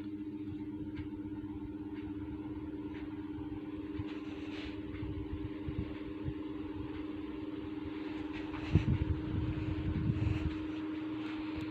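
Khind TF-163 16-inch electric table fan running: a steady motor hum with the rush of its blades. For about two seconds near the end, gusts of air buffet the microphone with a low rumble.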